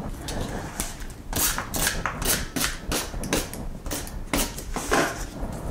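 Handheld tape runner drawn in short strokes across white cardstock, with paper being handled: a quick run of brief scraping strokes, about three or four a second, laying adhesive on a card base.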